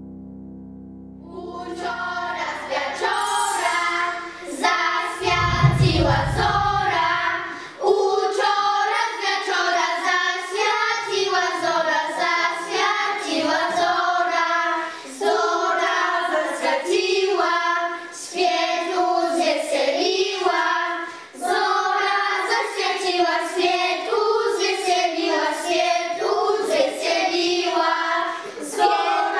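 A group of young children singing a Polish Christmas carol together, starting just after the last notes of a piano intro die away. A brief low rumble comes about five seconds in.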